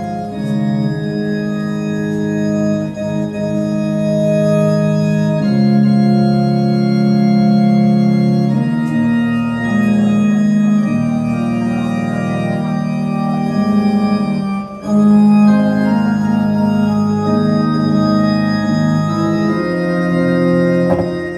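Electronic keyboard set to an organ sound, playing sustained chords through the hall's loudspeakers, with the chords changing every few seconds and a brief break about fifteen seconds in.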